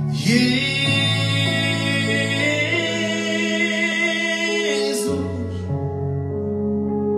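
Christian worship music: sustained keyboard chords with a voice singing long, wavering held notes over them until about five seconds in.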